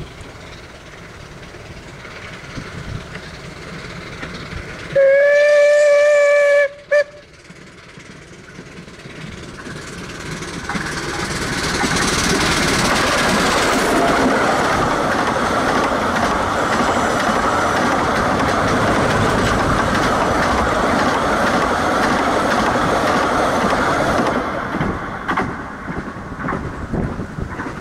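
Steam whistle of Bure Valley Railway's 15-inch gauge locomotive No. 7 'Spitfire' giving two toots, a long one of about a second and a half followed by a short one, then the engine and its carriages passing close by: the running noise builds up, holds loud for about twelve seconds and fades away with rail-joint clicks near the end.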